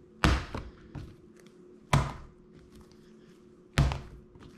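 Soft, elastic pizza dough slapped down onto a wetted stone counter three times, about two seconds apart, during slap-and-fold kneading. A smaller knock follows the first slap.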